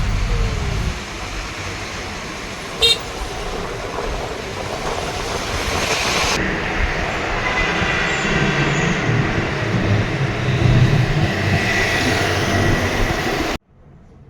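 Road traffic noise, a steady rumbling wash of passing vehicles, with a brief sharp sound about three seconds in; it cuts off suddenly near the end.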